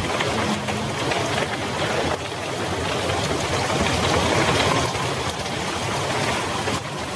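Heavy rain falling steadily, with a faint low hum underneath.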